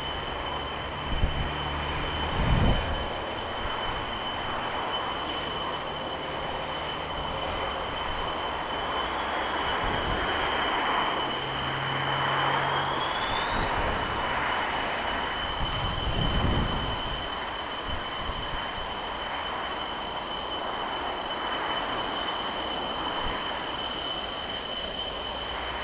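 A JF-17 Thunder fighter's turbofan jet engine whining steadily at a distance over a broad rushing noise, the aircraft on the ground. About halfway through, the whine rises in pitch and a second, higher tone joins it as the engine is throttled up.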